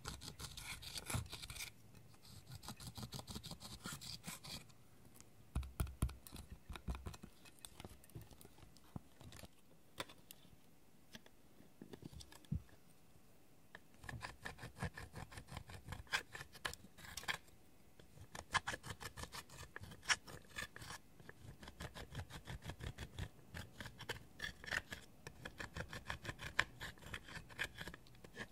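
Metal-tipped tool scratching pressed eyeshadow out of the pans of a makeup palette in quick, dry strokes. The scratching thins out for a few seconds about a third of the way in, then goes on in rapid runs.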